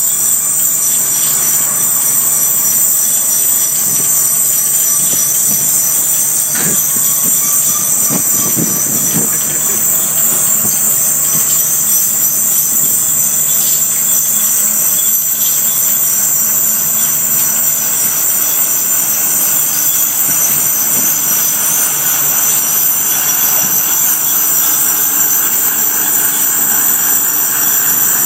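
Welded-rail train creeping along while long steel rails slide off its cars: a steady high-pitched squeal of steel on steel over the low hum of the unloading machine's engine, with a few clanks in the first third.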